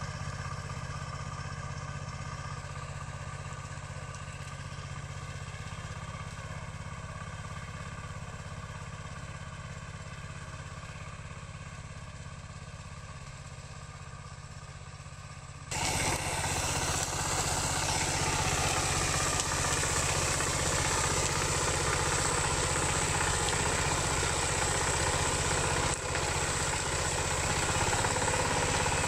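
Single-cylinder Dongfeng diesel engine of a two-wheel hand tractor running steadily. About 16 seconds in, the sound turns abruptly much louder and harsher and stays that way.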